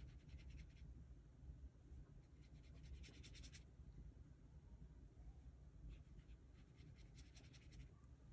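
Faint scratchy strokes of a watercolour paintbrush on sketchbook paper, in three short runs of quick dabs: near the start, about three seconds in, and about seven seconds in.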